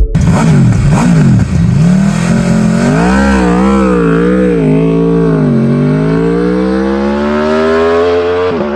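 Aprilia RSV4 1100 Factory's V4 engine revving hard: a few quick rises and falls in pitch at first, a wavering rev in the middle, then a long steady climb in pitch that breaks off sharply near the end.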